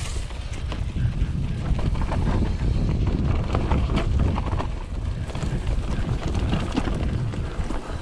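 Wind buffeting the camera microphone during a fast ride on a Scott Genius mountain bike over a dry dirt trail. The tyres run over dirt and stones, and the bike gives frequent small clicks and rattles.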